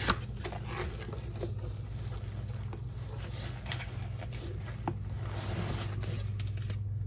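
Light rustling and a few soft taps from a cardboard shipping box and its plastic-wrapped packing being handled, over a steady low hum. A sharp tap comes right at the start and another about five seconds in.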